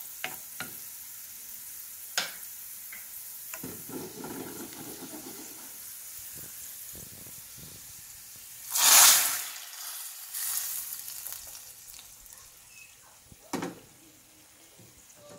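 Sliced garlic and panch phoron sizzling in hot oil in a frying pan, stirred with a wooden spatula that clicks against the pan a few times. About nine seconds in, the hot tarka is poured into the pot of boiled dal with green mango, giving a sudden loud hiss that dies away over a couple of seconds. A single knock comes near the end.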